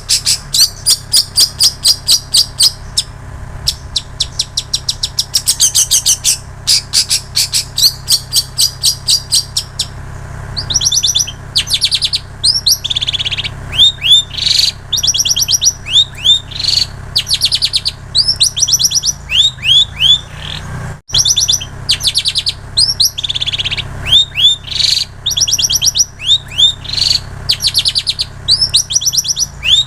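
Long-tailed shrike singing a song filled with mimicked plain prinia and canary phrases. For about the first ten seconds it gives fast, high-pitched trills of rapidly repeated notes in bursts with short gaps. After that it switches to phrases of quick down-slurred notes. There is a brief break about 21 seconds in, and a steady low hum runs underneath throughout.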